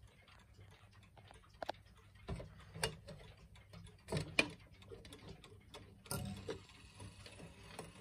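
Mechanical mantel clock ticking faintly, with louder clicks and knocks as its hinged glass bezel is opened and its minute hand is turned by hand.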